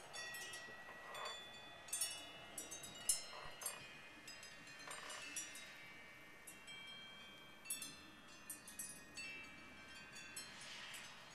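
Wind chimes ringing irregularly as the wind moves them: clusters of high, clear notes struck several at a time and dying away, with a faint rush of wind now and then.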